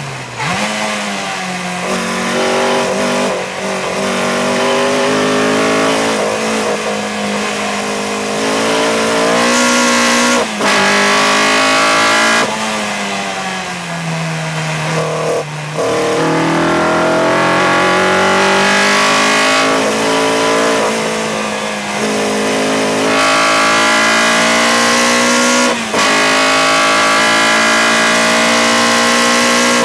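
Engine of an open-cockpit, Seven-style race car heard onboard at racing speed. The note drops as the car slows, then climbs again and again through the gears, with a brief break at each upshift. A steady rush of wind noise runs underneath.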